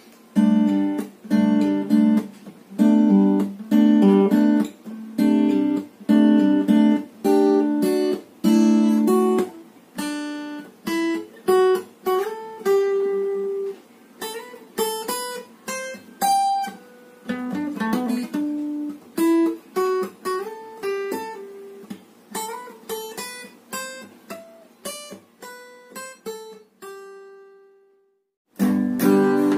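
Solo steel-string acoustic guitar. It plays rhythmic chords for about the first ten seconds, then a picked single-note melody. The melody ends on a ringing note that fades away, and after a short break a new strummed intro starts near the end.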